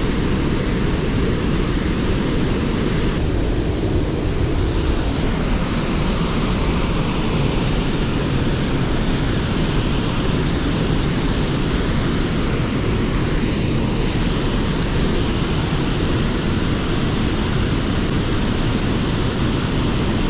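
Flood-swollen creek water rushing past steadily and loudly, a continuous even rush of fast current at high water.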